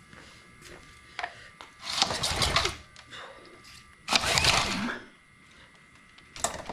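Two pulls on a small engine's recoil starter rope, about two seconds apart, each a quick whirring rush of under a second. The spark plug is out and grounded on the frame, so the engine spins freely without starting while it is checked for spark. A few faint clicks come between the pulls.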